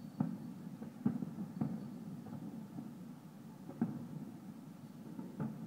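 Distant fireworks exploding: about five muffled bangs at irregular intervals over a low steady rumble.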